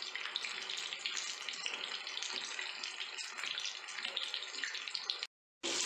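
Hot oil sizzling and crackling steadily as chicken kabab pieces deep-fry in a steel kadai. The sound cuts out briefly near the end.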